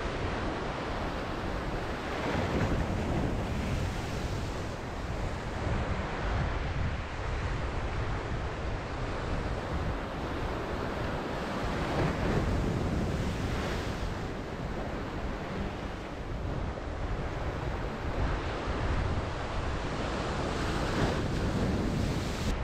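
Ocean surf washing in and out, swelling in surges every few seconds, with wind rumbling on the microphone.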